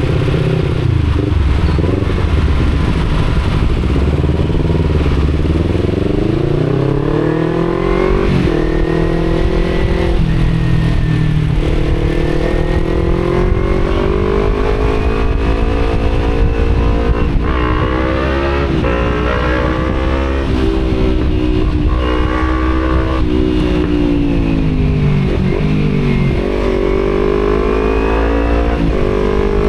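Kawasaki Z250 parallel-twin engine with an Akrapovic exhaust, heard from the rider's seat, pulling up through the gears: its note climbs, then drops sharply at each shift, about six times, over steady wind noise.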